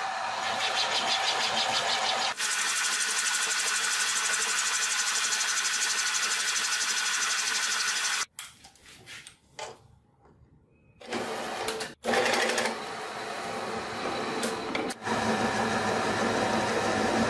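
Workshop power tools running steadily in several short cut segments, with a quieter stretch of a few knocks in the middle.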